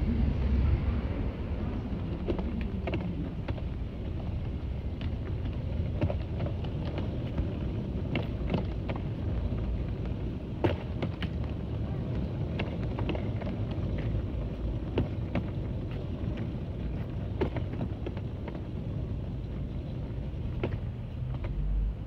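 Rolling suitcase wheels rumbling over a concrete sidewalk, with irregular clicks and taps from the wheels and footsteps.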